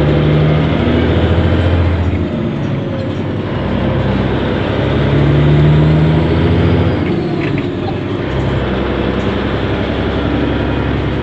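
Caterpillar diesel engine of a Peterbilt semi tractor running under way, heard from inside the cab, its low note rising and falling a few times as the truck pulls.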